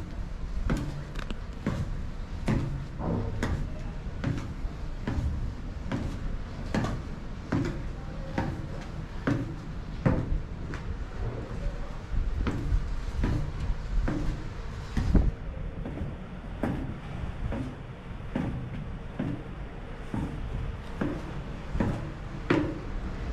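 Footsteps going down metal spiral stairs: a steady run of knocking footfalls ringing on the steps, about one to two a second, over a low rumble.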